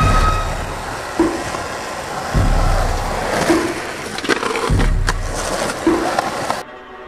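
Skateboard wheels rolling on rough tarmac under a music track with a slow, steady beat. The sound drops away sharply near the end.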